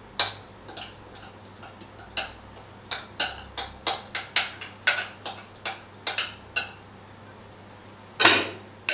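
A metal spoon tapping and knocking against a glass mixing bowl, a run of short, sharp clinks about two a second, as the mixture is scraped out. Near the end there is one louder, longer clatter.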